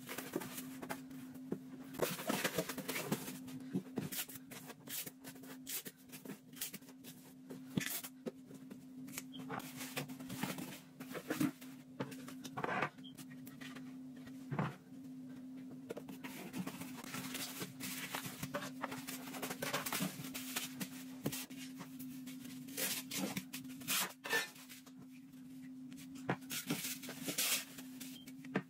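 Corrugated cardboard being folded and handled, with irregular rustles, scrapes and light taps, over a steady low hum.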